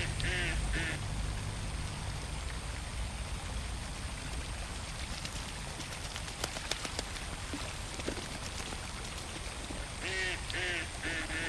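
Ducks quacking in two short runs of calls, a few at the start and more near the end, over a steady wash of water noise with a few small drips or splashes in the middle.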